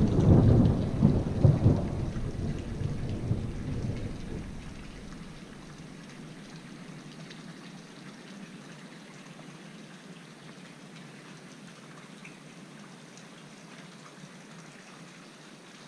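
Wind buffeting the camera's microphone: an uneven low rumble with gusty peaks for the first few seconds that dies away to a steady faint hiss.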